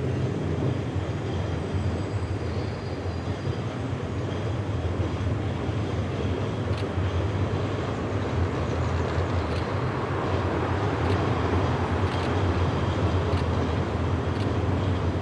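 Diesel railcar train running steadily across a railway bridge: a low engine drone with rolling wheel noise, growing slightly louder. In the second half there are faint sharp clicks about once a second.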